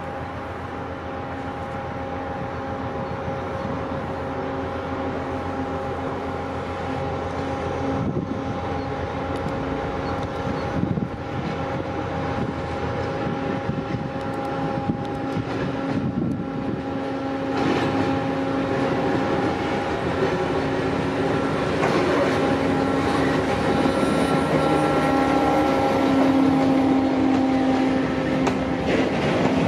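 Diesel locomotive hauling a freight train of open wagons, its engine running with a steady hum that grows louder as it approaches and passes close by.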